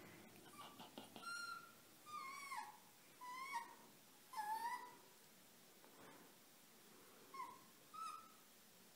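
Red fox kit giving faint, short high-pitched whimpering squeaks, about eight of them, several dipping and rising in pitch.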